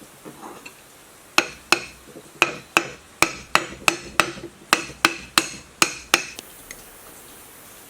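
Hammer blows, about fifteen sharp, unevenly paced strikes each with a brief ring, during reassembly of an electric water pump motor. They begin about a second and a half in and stop about six seconds in.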